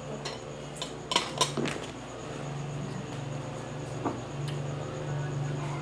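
Tableware clinking during a meal: a handful of sharp clinks of spoon and dishes, loudest in a quick cluster just over a second in and once more near four seconds, over a low steady hum.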